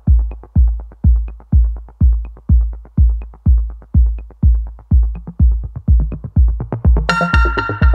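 Electronic background music: a deep kick drum on every beat, about two a second, with a bright synthesizer chord coming in near the end.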